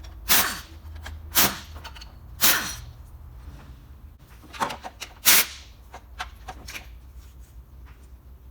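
A series of loud, sharp knocks or clanks, five in the first five and a half seconds and irregularly spaced, over a steady low hum.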